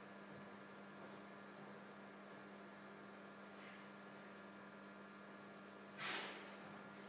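Quiet room tone with a steady low hum, broken about six seconds in by one brief swishing noise.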